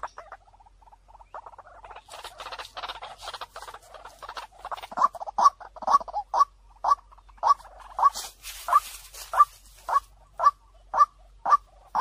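White-breasted waterhen decoy call: after a quiet first second, soft rapid chattering notes build into a loud, sharp call note repeated about twice a second.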